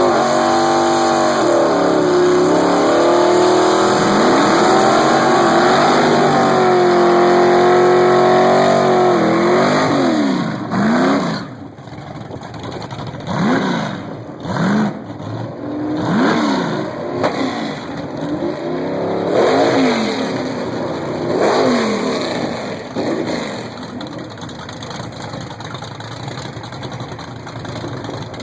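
Loud engine of a drag racing vehicle at full throttle: the pitch dips at a gear change about two seconds in, then holds high until about ten seconds in, when it falls away. After that, quieter, a string of shorter engine sweeps rise and fall in pitch.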